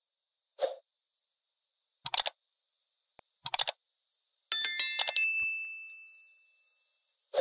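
Sound effects of a like-and-subscribe button animation: a soft tap, two short clusters of mouse clicks, then a bright notification-bell ding about four and a half seconds in that rings out for about two seconds.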